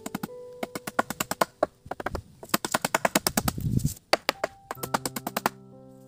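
A rapid, uneven run of sharp knocks and clicks, with a short break about four seconds in, stopping around five and a half seconds in. Soft keyboard music with long held notes comes in near the end.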